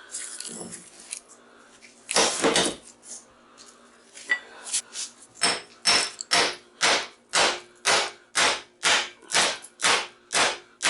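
Hammer striking a transformer's steel lamination core to knock the laminations out. A few scattered knocks, then from about halfway through a steady run of sharp blows, about two and a half a second.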